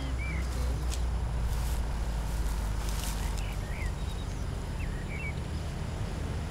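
Outdoor ambience: a steady low rumble with a few short bird chirps scattered through it.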